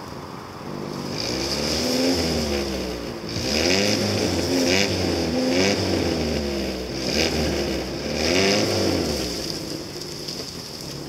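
Lada Niva engine revving up and down repeatedly, about four or five surges, as the car works its way across rough off-road ground. It is loudest in the middle and eases off near the end as the car moves away.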